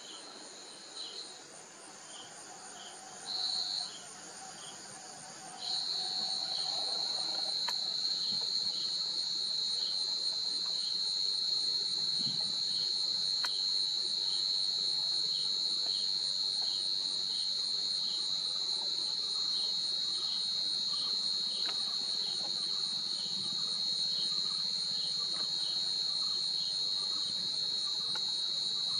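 Forest insects trilling: a steady high-pitched insect drone comes in short bursts over the first few seconds, then holds continuously from about six seconds in. A fainter insect chirp repeats regularly beneath it.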